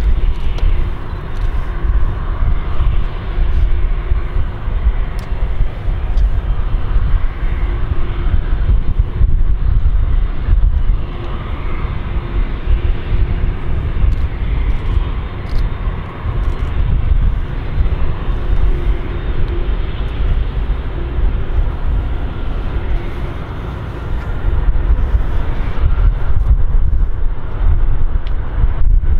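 Lockheed C-5M Super Galaxy's four turbofan engines running as the aircraft taxis: a loud, steady low rumble with a faint hum, swelling again near the end.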